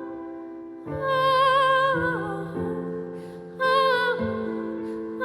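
A woman singing a slow song in long, held phrases with vibrato, over sustained accompanying chords; the phrases begin about a second in and again near four seconds.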